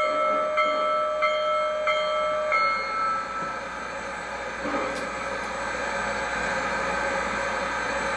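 Proto-Sound 3.0 sound system of an MTH One Gauge Union Pacific Big Boy model locomotive playing the locomotive bell, ringing about one and a half strokes a second, which stops about two and a half seconds in. A steady steam hiss from the same sound system carries on after it.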